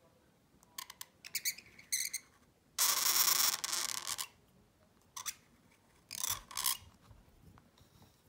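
Calligraphy pen scratching across paper as Persian letters are drawn: a few short strokes, then one longer, louder scrape in the middle, and two more short strokes after it.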